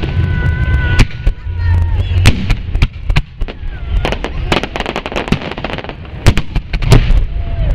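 Fireworks display: aerial shells bursting one after another in quick, irregular succession, a dense run of sharp bangs and crackles over a constant low rumble.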